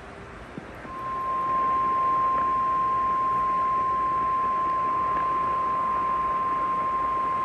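NOAA Weather Radio warning alarm tone: a single steady tone near 1 kHz that comes on about a second in over radio static and holds, signalling that a new warning broadcast follows. A faint click comes just before the tone.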